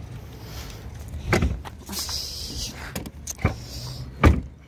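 Car boot lid being shut over bagged groceries: several knocks and thumps, the loudest near the end.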